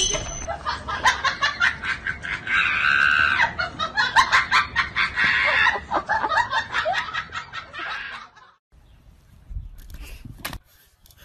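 People laughing hard in rapid, cackling bursts for about eight seconds, then breaking off suddenly into much quieter sound with a short low thud near the end.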